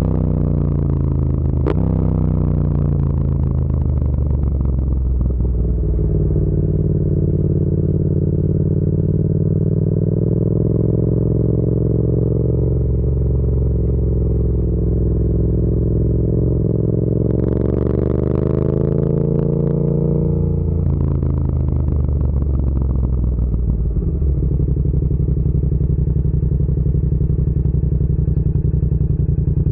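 Yamaha MT-07's 689 cc parallel-twin engine and exhaust running steadily. The engine note falls over the first few seconds, holds, rises briefly about two-thirds of the way in, then settles again.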